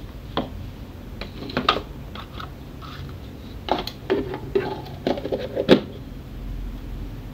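A scattering of short taps and clatters from kitchen utensils and containers being handled: a metal spoon and a plastic margarine tub knocking against a mixing bowl and the counter, busiest from about four to six seconds in.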